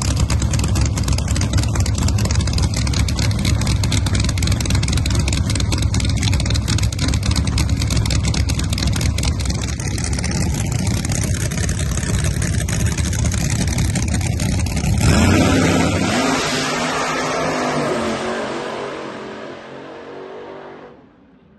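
Two Pro Nitrous drag cars' nitrous-fed V8 engines rumbling loudly at the starting line, then a sudden louder burst as they launch about fifteen seconds in. The sound of the pass fades quickly as they run off down the track, nearly gone by the end.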